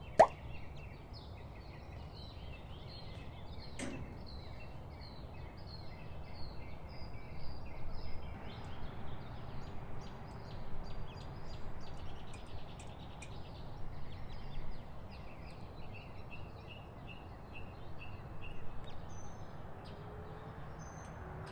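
Outdoor ambience: small birds chirping in short, repeated notes over a low steady rumble, with a single sharp knock about four seconds in.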